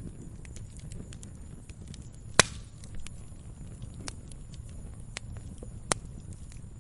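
Log fire crackling: scattered small pops and snaps over a low rumble of burning, with one sharp, loud pop about two and a half seconds in and another near six seconds.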